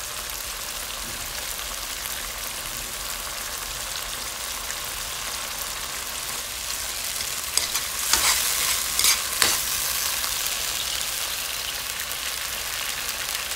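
Onions, peppers and sauce sizzling steadily in a non-stick frying pan, with a few sharp scrapes and clinks of a metal spoon stirring against the pan about eight to nine and a half seconds in.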